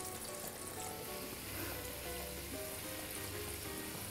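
Flour-coated chicken pieces sizzling in a pan of hot oil, a steady hiss of oil bubbling as steam escapes from the meat, the sign the oil is hot enough that it won't soak into the chicken. Soft background music with a simple melody plays over it.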